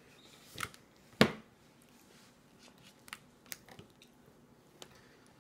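Scattered small clicks and knocks of a toddler's plastic spoon and suction bowl against a high-chair tray, with one sharper knock about a second in.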